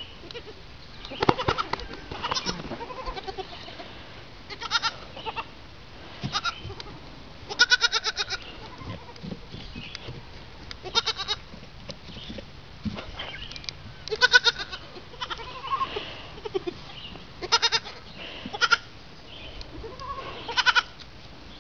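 Young goat kids bleating over and over, about a dozen short, wavering high calls spaced a second or few apart.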